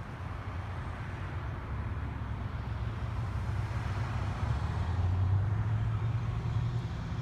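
A motor vehicle's engine running, a steady low hum that grows louder about four and a half seconds in.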